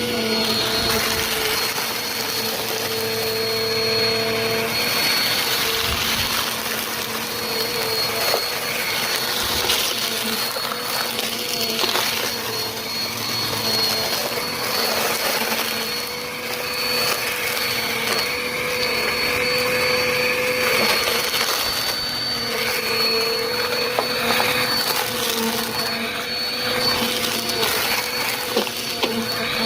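Bissell Compact vacuum cleaner running, a steady rush of air under a high motor whine, with a few light clicks near the end.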